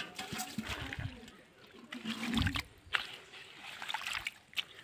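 Shallow muddy water splashing and sloshing in short, irregular bursts, with a few dull thuds and sharp slaps.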